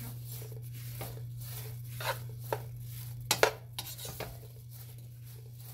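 A plastic slotted spoon stirring mini marshmallows in a metal pot, scraping and knocking against the pot with a few sharper knocks about halfway through. A steady low hum runs underneath.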